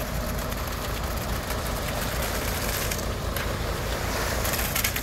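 Concrete mixer truck running with its drum turning, a steady rumble, as concrete slides out down the chute.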